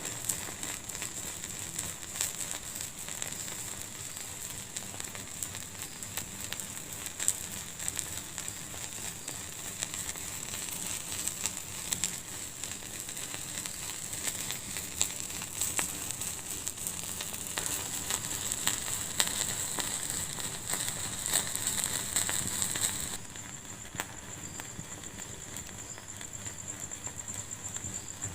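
Wood fire in a fireplace crackling steadily, with frequent sharp pops over a soft hiss. About five seconds before the end it abruptly turns quieter, with less hiss.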